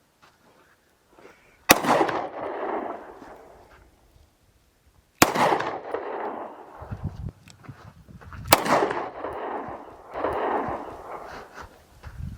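Three gunshots a few seconds apart, each a sharp crack trailing off in a long echo.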